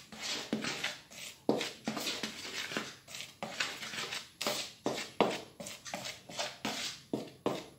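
A hand mixing dry flour, cornstarch and icing sugar together in a plastic bowl: quick rustling, swishing strokes through the powder, two or three a second.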